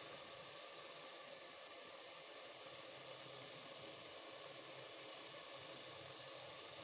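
Faint, steady sizzle of turnip curry cooking in its pan.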